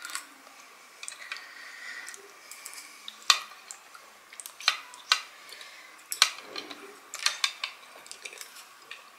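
Metal chopsticks clicking and tapping against plates and against each other as momos are picked up: irregular sharp clicks, a few louder ones scattered through.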